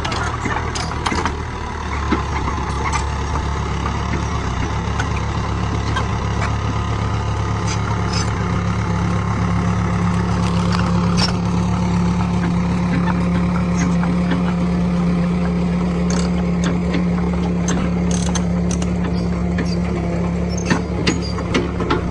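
Heavy diesel engine running steadily, picking up a little about two seconds in, with scattered clicks and knocks over it.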